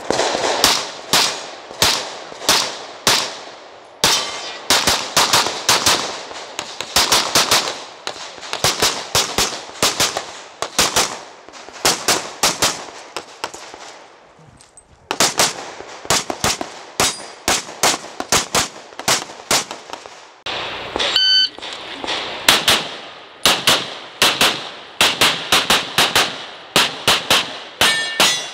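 Rapid pistol fire from an Open-division competition pistol: strings of shots, mostly in fast pairs, with a pause of about a second around the middle while the shooter runs to the next position. Steel targets ring briefly after hits about two-thirds through and again near the end.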